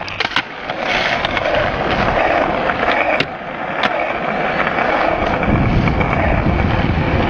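Skateboard wheels rolling steadily over rough asphalt, with a few sharp clacks of the board, one pair close together about three to four seconds in.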